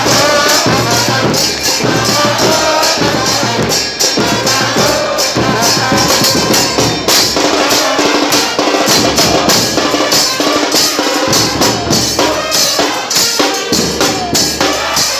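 Football supporters singing a terrace chant together, with drums and percussion beating a steady rhythm underneath.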